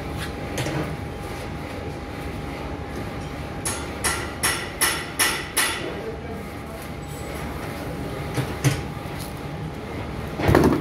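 Semi-automatic masking tape slicer running with a steady motor hum. About four seconds in come six quick metallic clacks, roughly 0.4 s apart, from the sliding knife carriage and hand-press mechanism. Two more knocks follow later, and there is a louder clatter near the end.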